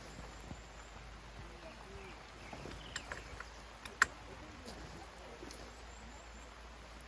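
Steady faint outdoor background noise, with a few light clicks and one sharp click about four seconds in.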